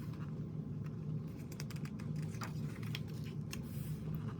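Paper handling as photobook pages are turned and touched: scattered light clicks and rustles over a steady low hum.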